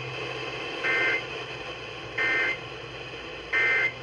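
Emergency Alert System end-of-message code received over FM radio: three short bursts of SAME digital data tones, evenly spaced about a second apart, over a steady radio hiss. The bursts signal the end of the alert.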